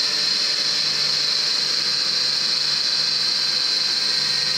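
Angle grinder cutting through steel chain: a loud, steady high-pitched whine over a rough grinding noise.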